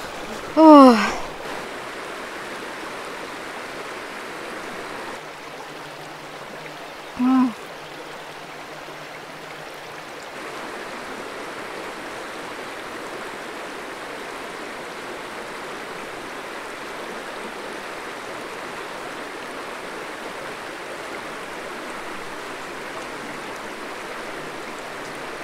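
A shallow tundra stream rushing and babbling steadily. A short vocal sound with a falling pitch comes about a second in, and a briefer one about seven seconds in.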